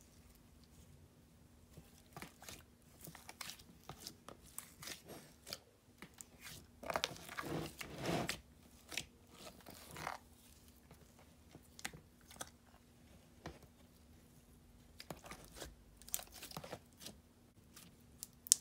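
Slime being stretched and squished by hand, giving soft crackling clicks and sticky pops that cluster thickest about seven to eight seconds in.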